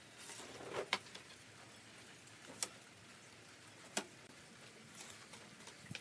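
Three light, sharp knocks spread over a few seconds, the first just after a brief scuffle, typical of wooden pieces being handled and set down during woodworking.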